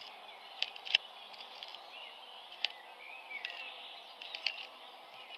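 Faint outdoor ambience: a steady hiss with scattered short bird chirps and ticks.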